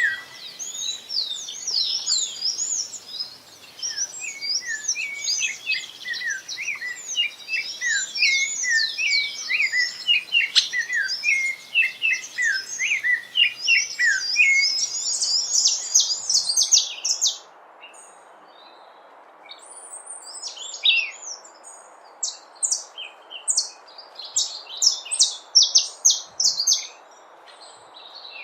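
Many small birds chirping and singing together in a dense, overlapping chorus of high chirps and trills. About seventeen seconds in it changes to sparser, short sharp chirps over a steady hiss.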